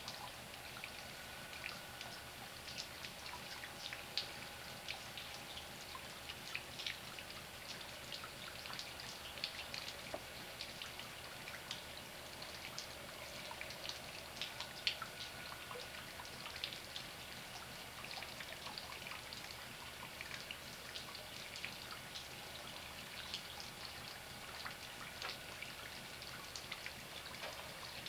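Light rain falling and dripping, many small irregular drop ticks over a soft steady hiss.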